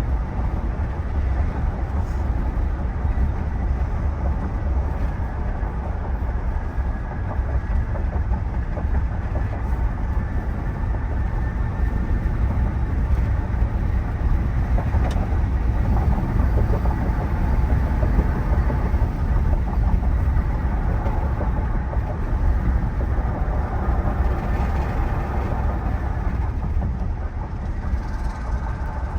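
Steady road and wind noise inside the cabin of a 2023 Ram 1500 Limited pickup on the move: a deep tyre rumble with wind rush over it. Its wind noise is less well isolated than expected for a truck with double-pane windows.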